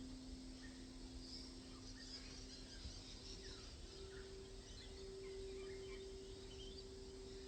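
Singing bowls ringing with two sustained tones: the lower one slowly fades while the higher one swells about halfway through and holds.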